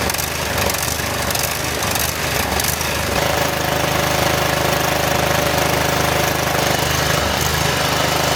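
Briggs & Stratton 22 HP V-twin engine on a riding mower running, uneven for the first few seconds and then settling to a steady run about three seconds in. The surging has stopped after the carburetor cleaning.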